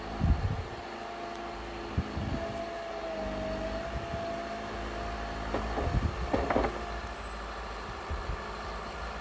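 Trail-grooming vehicle's engine running steadily, with a few knocks and rattles, the loudest cluster about six seconds in, and a steady whine through the middle.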